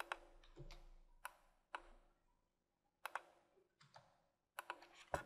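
Faint, scattered clicks of a computer mouse and keyboard, about ten short irregular clicks spread across a few seconds.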